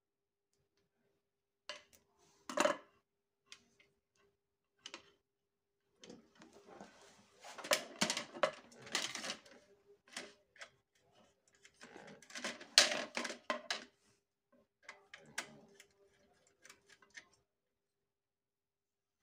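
Hand-work noise from wiring a plastic modular switch board: pliers clicking and snipping on 1.5 mm insulated copper wire, and the plastic board and its terminals rattling and clicking as the wire is handled. The sounds come in irregular bursts of clicks and rattles with quiet gaps between.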